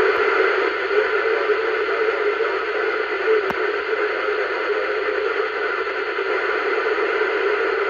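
CB radio speaker giving out a steady hiss of static from an incoming signal that carries no readable voice, just interference.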